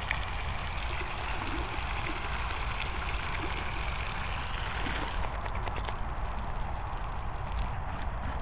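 Water from a garden hose splashing into a plastic paddling pool, a steady rushing splash. About five seconds in it turns into a softer, more uneven hiss as the jet moves onto the grass. A low rumble runs underneath.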